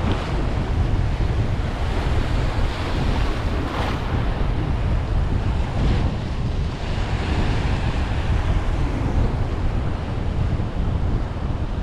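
Strong waves surging and breaking in shallow surf, with heavy wind buffeting the microphone in a steady low rumble.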